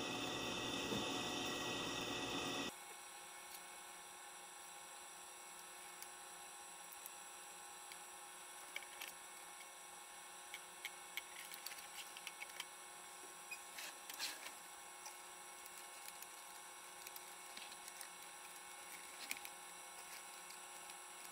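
Faint scattered clicks and taps of hands handling a small Bluetooth decoder board, the boombox's plastic case and its wires. A steady hiss at the start drops off suddenly about three seconds in.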